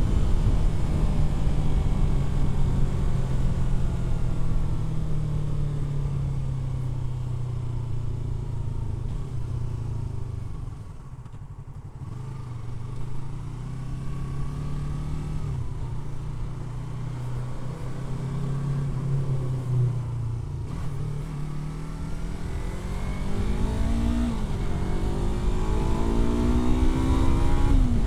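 Yamaha R3's 321 cc parallel-twin engine on the move. It eases off and drops in loudness about eleven seconds in, cruises steadily, then pulls hard near the end: the pitch rises and falls suddenly twice as it shifts up through the gears, over a steady rumble of wind.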